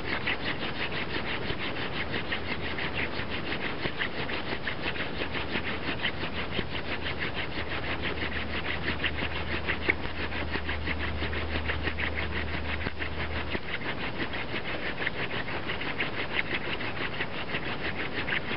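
Elder hand drill spun between the palms in a clematis hearth board: a continuous rapid dry rasping of wood grinding on wood as the drill bores in for a coal. A low hum runs underneath and stops about three-quarters of the way through.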